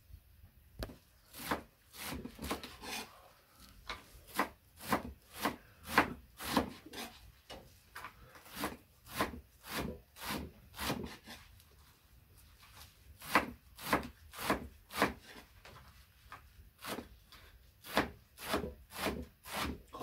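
Kitchen knife cutting through beet greens against a wooden board, in repeated strokes about two a second with a few short pauses.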